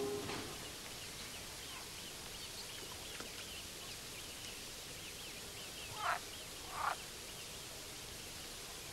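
Music fades out, then dawn bird calls: a rapid run of faint high chirps for the first few seconds, and two louder short calls about six and seven seconds in.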